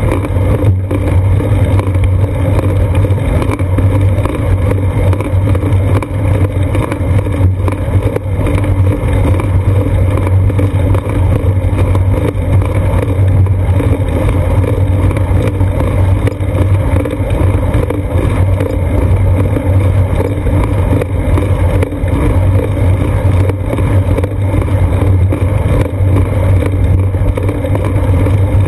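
Steady low rumble of wind and road vibration picked up by a camera mounted on a moving bicycle's seat post.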